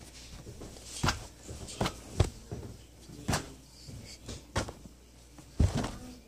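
Handling noise: about half a dozen irregular knocks and bumps as a cloth towel is moved about close to the phone's microphone.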